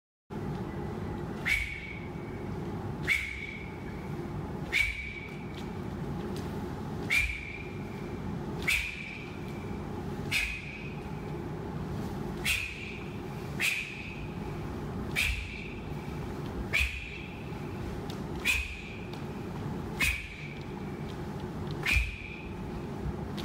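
Taekwondo pattern techniques performed one after another: each block or strike gives a short sharp snap with a brief whistling tone, about every one and a half to two seconds, over a steady low hum.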